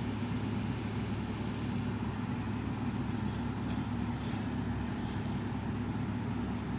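Steady low background hum, with two faint ticks about halfway through.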